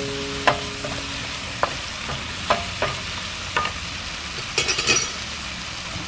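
Tomato wedges sizzling in oil in a nonstick frying pan, with a spatula stirring them and knocking against the pan about every second, then a quick run of clatter near the end.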